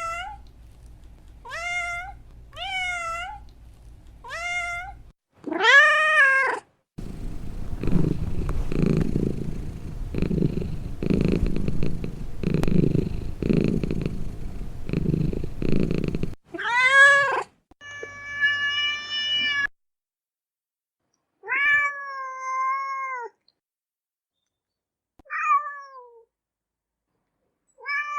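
Domestic cat meowing: several short rising-and-falling meows about a second apart, then about nine seconds of low, steady purring that swells and fades in slow pulses, then a few more meows, some longer and drawn out. The recordings are cut together, with sudden silences between some of them.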